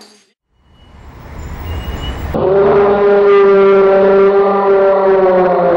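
A low rumble swells up, then about two and a half seconds in a loud, steady held tone starts abruptly and holds for about three seconds before fading.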